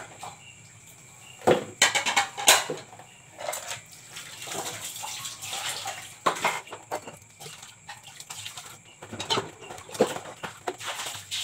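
Water splashing and pouring as a plastic dipper scoops from a large tub, with a few sharp knocks in between, the loudest about one and a half to two and a half seconds in.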